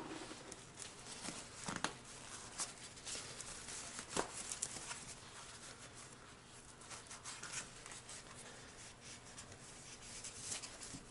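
Faint handling of a fabric-covered helmet cheek pad: soft cloth rustling with a few light clicks and ticks, the clearest about two and four seconds in.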